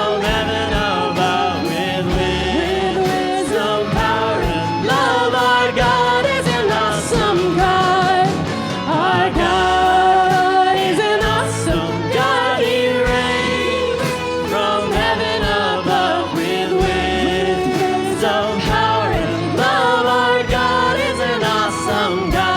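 Christian worship song with sung vocals over a band and a steady drum beat.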